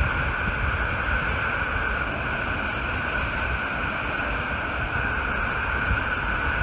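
Reservoir outlet jet of the Button Rock Dam gushing water, a steady rush of spray and white water pouring into the river.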